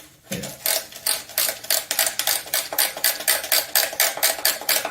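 Hand socket ratchet clicking in a fast, even rhythm, about five clicks a second, loosening a bolt on the engine's oil pan.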